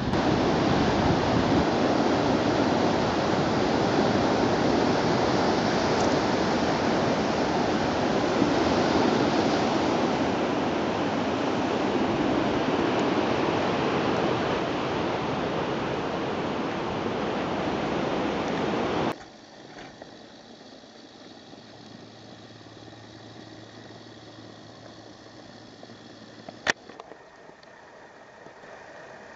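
Loud, steady rushing of wind and sea surf. It cuts off suddenly about two-thirds of the way through, leaving a much quieter low hum with a single sharp click near the end.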